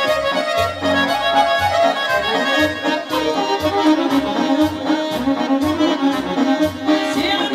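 Live band playing amplified traditional folk music led by an accordion, over a steady bass beat of about two beats a second.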